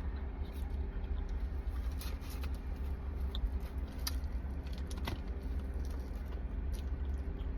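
A person chewing a bite of a chicken-filled pastry pocket with truffle sauce, with scattered small crunches and mouth clicks, over a steady low rumble.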